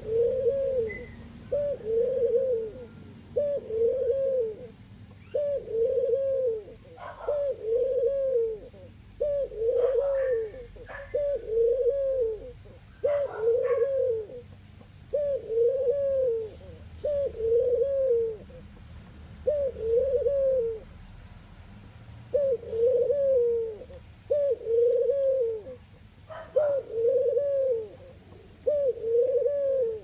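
Ringneck dove cooing: a long run of low, evenly spaced coos, about one every second and a half, with a short break about two-thirds of the way through.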